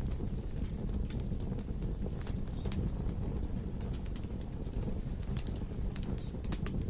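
Wood logs burning in a fireplace: a steady low rush of flames with frequent, irregular sharp crackles and pops.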